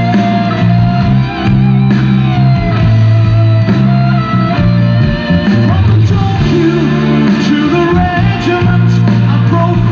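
Live progressive rock band playing through a large PA: electric guitars, bass, drums and keyboards. A held melody line with bends runs over bass notes that change every second or two.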